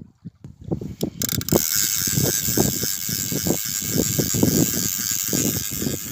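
Spinning fishing reel being cranked to wind in line, a steady gear whirr and ratchet that starts abruptly about a second in, with irregular low thumps beneath it.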